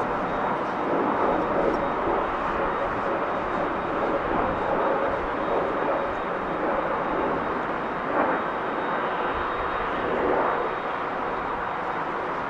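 Boeing 787-9 jet engines running at taxi power as the airliner rolls away: a steady rushing noise with a faint, steady high whine.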